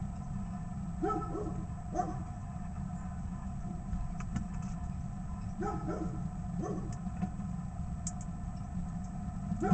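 Steady low rumble of a running engine, with a handful of short dog barks, a couple about one to two seconds in, more around six to seven seconds, and one near the end.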